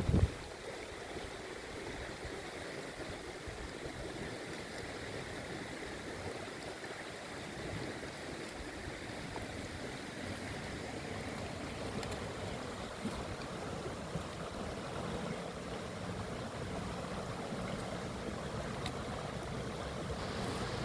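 Floodwater flowing in a steady rush, with a short thump right at the start.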